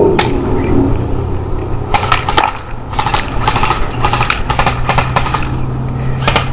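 Electric airsoft AK-47 firing full auto in several short bursts, a rapid clatter of shots.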